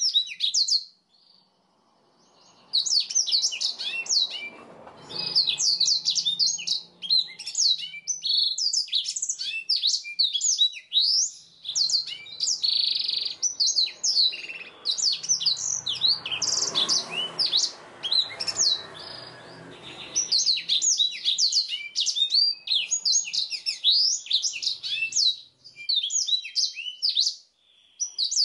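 Black-throated canary singing a long, fast song of quick sweeping notes, with a short pause about a second in and one held note around halfway.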